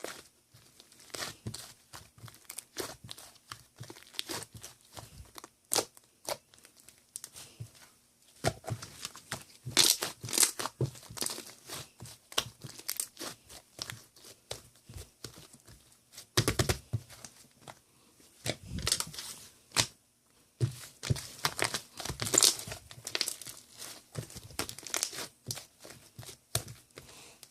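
Crinkling, crackling and tearing of thin wrapping material such as plastic or paper, in a dense run of short irregular rustles with louder bursts now and then.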